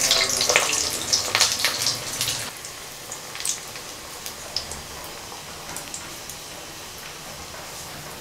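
Mutton kola urundai (minced-mutton balls) deep-frying in hot oil: a burst of dense crackling sizzle as a fresh ball is dropped in. After about two and a half seconds it settles to a steadier, quieter sizzle with occasional pops.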